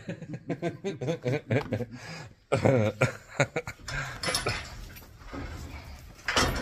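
A man and a woman laughing, in short repeated bursts.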